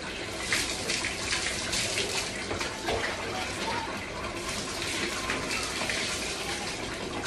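Water being poured from a plastic mug over the body and splashing onto a wet floor, a continuous run of splashes and trickling while the body is washed.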